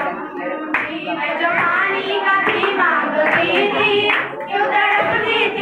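A girl singing a song into a microphone while the group claps along in a steady beat.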